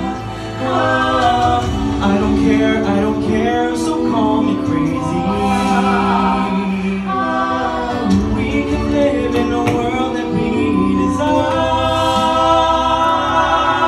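A cappella vocal ensemble of men and women singing in harmony through handheld microphones, with several voices over a sustained low bass line.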